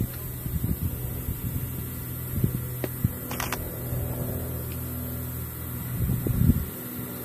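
Steady low hum of an idling engine, with gusts of wind rumbling on the microphone.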